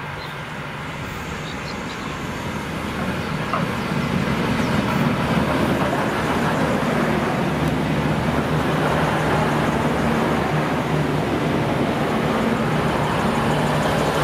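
V/Line VLocity diesel multiple unit pulling slowly into the platform, its underfloor diesel engines running steadily with a deep drone. The sound grows louder over the first few seconds as the cars come alongside, then holds steady.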